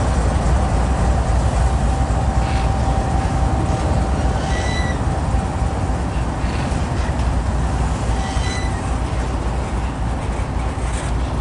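Freight train of autorack cars rolling past at trackside: a steady low rumble of steel wheels on rail, with a faint steady whine through most of it and two brief higher squeaks.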